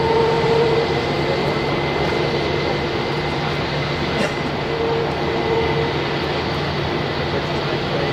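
Jet airliner engines running steadily, heard from a distance as an even rush with a faint held whine, as a twin-engine airliner waits lined up on the runway before take-off.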